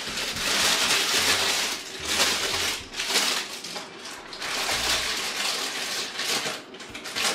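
Baking paper crinkling and rustling as it is crumpled in the hands and then spread and pressed into a springform tin, in several crackly bouts with short pauses between.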